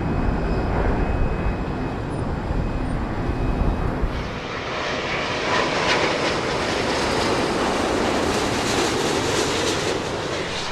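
Jet noise from an Airbus A350's Rolls-Royce Trent XWB turbofans as the airliner passes. A deep rumble dominates for the first few seconds, then about four seconds in it gives way to a brighter, hissing roar.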